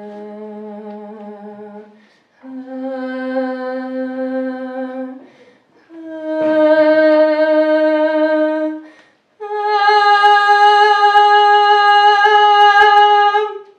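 A woman's voice singing four long held notes with short breaths between. Each note is higher and louder than the one before.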